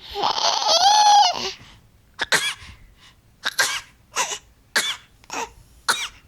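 A five-month-old baby's voice: one long, high-pitched shriek that bends in pitch, then a string of short squeals, about six of them roughly half a second apart.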